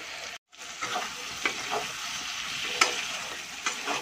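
Chicken pieces frying and sizzling in oil in a metal kadai while a metal spatula stirs in freshly added salt and turmeric powder, its strokes clicking and scraping against the pan several times. The sound cuts out briefly just under half a second in.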